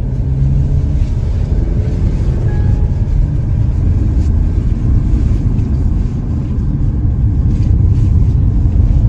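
Car driving slowly, with a steady low road and engine rumble heard from inside the cabin.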